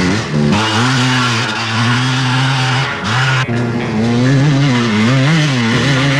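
Enduro motorcycle engine running along a trail, its pitch rising and falling with the throttle. The sound changes abruptly about half a second in and again about three and a half seconds in.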